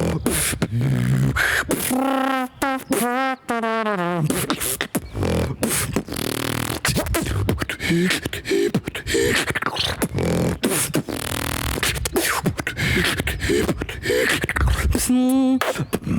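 Solo beatboxing: a fast stream of mouth-made kicks, snares and clicks over vocal bass. Wavering, sung pitched tones come in at about two seconds and again near the end.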